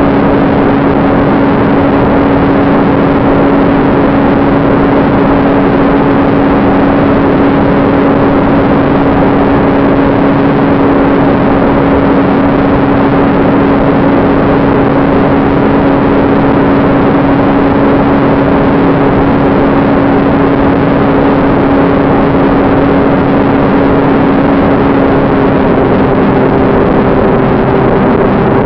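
Ducted-fan motor of a radio-controlled model jet running at steady cruise power, picked up by the onboard camera, with a constant hum at one pitch over heavy rushing air noise. The hum shifts slightly in pitch near the end.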